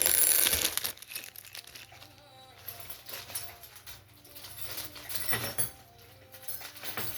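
Plastic packaging crinkling and rustling as it is handled, loudest in the first second, with more rustles about three and five seconds in.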